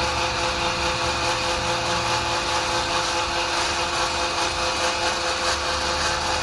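5.5-horsepower electric animal-feed pellet mill running steadily, a hum from its motor over a continuous grinding noise as it works, with a 5-inch die with 4 mm holes.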